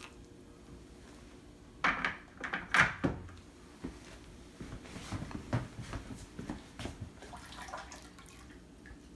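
Kitchen handling clatter as a stainless kettle and a glass measuring cup of warm water are set down and moved: a loud clunk and rattle about two seconds in, then scattered lighter knocks and bumps, with water poured into a stoneware bowl near the end.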